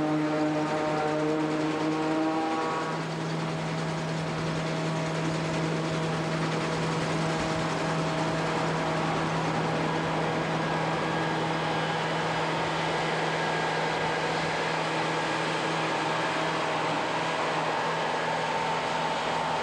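Self-propelled forage harvester running steadily while chopping maize, a constant machine hum with a low steady tone. A higher whining set of tones drops away about three seconds in, leaving a steady, noisy running sound.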